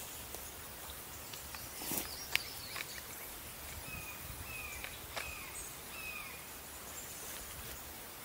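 Quiet outdoor field ambience with a steady faint hiss, a bird giving about four short chirps in the middle, and a few faint clicks.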